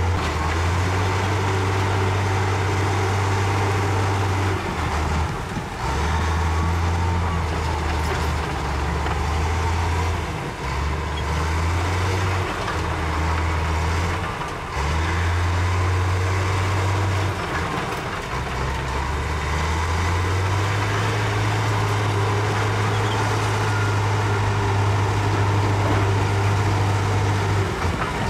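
Heavy diesel engines of a Komatsu D65E bulldozer and a dump truck running. The deep engine note steps up and down in pitch several times, with a few brief dips.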